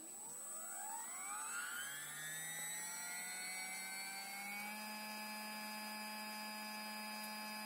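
Surpass Rocket 4092 1650KV four-pole brushless motor spinning up unloaded on a motor analyzer during a KV test. A whine rises in pitch for about five seconds, then holds steady at around 12,000 rpm. It runs very quiet and very smooth.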